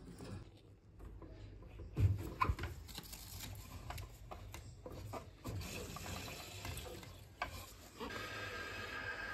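A few knocks from handling the valves under a combi boiler, then water hissing through the boiler's filling valve as the emptied heating system is refilled, settling into a steady whistle near the end.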